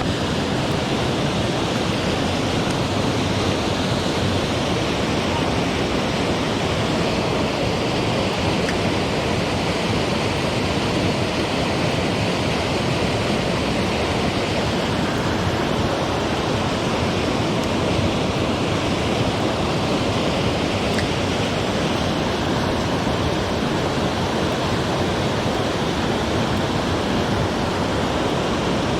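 Mountain stream water rushing over rocks: a loud, steady, even rush that does not change.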